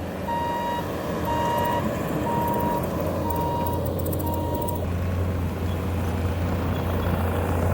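Bobcat T650 compact track loader's diesel engine running steadily while its backup alarm beeps about once a second as it reverses. The beeping stops about five seconds in and the engine keeps running.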